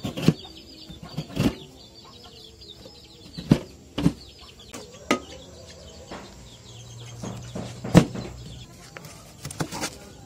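Knife chopping a block of palm sugar on a plastic cutting board: sharp, irregular chops, about half a dozen loud ones.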